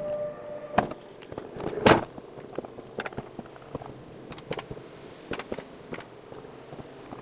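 Alpine coaster sled on its tubular rail track coming to a stop. A steady whine cuts off, then come two sharp knocks about a second apart, the second the loudest, followed by scattered light clicks and taps.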